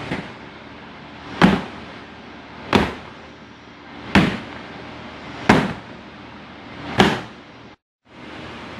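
Metal sheet pan of piped macaron shells rapped down hard on a container five times, about once every second and a half, to knock the air bubbles out of the batter. A steady background hiss runs underneath, and the sound cuts out briefly near the end.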